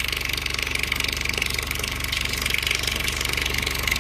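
Woofer playing a steady 24 Hz test tone, heard as a low, fast-pulsing buzz with a ladder of overtones, while a water stream from a hose runs past the cone with a steady hiss.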